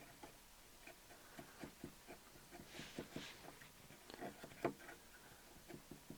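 Faint handling sounds of cleaning work on a turntable: scattered light taps and clicks, a brief soft rub a little under three seconds in, and one sharper click about four and a half seconds in.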